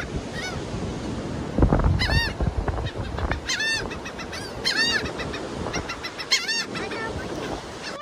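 Gulls flying overhead calling in short bursts of high, arching cries, about five bursts in all. Wind rumbles on the microphone throughout, gusting hardest about a second and a half in.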